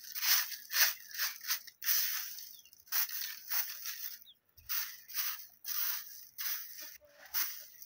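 Short hand broom of bundled twigs sweeping bare dirt ground: quick scratchy swishes about two a second, with a short pause a little past the middle.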